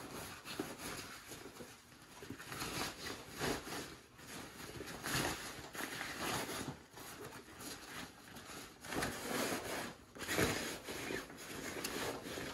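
Fabric rustling and crumpling in uneven spells as a hammock is stuffed loose into a large backpack, the pack's material rubbing and scraping against the hands.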